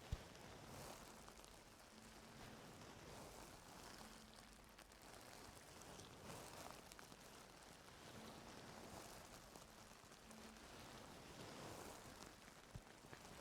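Faint crackling, scratching rustles of ear-cleaning tools working in an ear canal close to the microphone, in soft swells every second or two.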